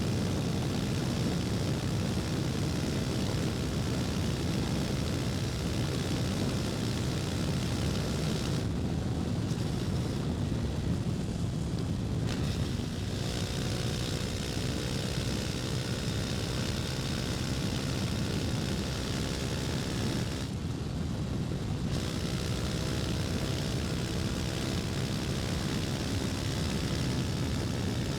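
KTM 250 Duke's single-cylinder engine running under way, mixed with wind rush. The engine note holds steady, easing off briefly twice, about a third of the way in and again after the middle.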